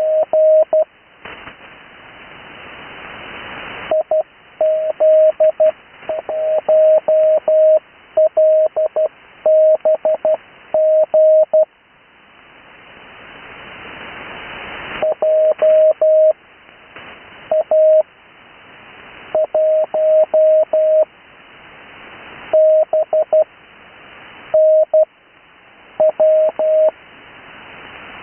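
Morse code (CW) on an amateur radio receiver: a single steady tone of about 600 Hz keyed in groups of dits and dahs spelling out amateur radio call signs. Receiver hiss swells up in the longer pauses between groups.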